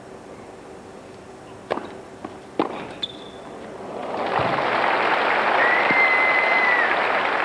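A tennis ball struck back and forth a few times in a short rally, sharp pops about a second apart. Then the crowd breaks into applause that builds and holds, with a long whistle in the crowd.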